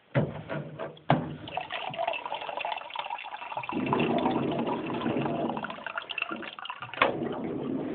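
Water running from a water cooler's tap into a bottle, a steady splashing fill that turns lower and fuller about four seconds in. Sharp clicks come near the start and again about seven seconds in.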